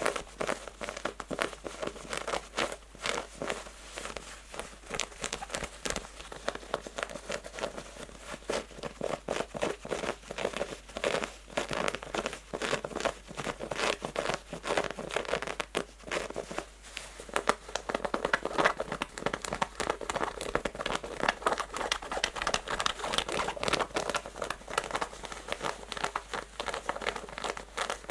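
Natural fingernails scratching fast and aggressively on rough, textured denim jeans fabric: a continuous run of rapid, scratchy strokes.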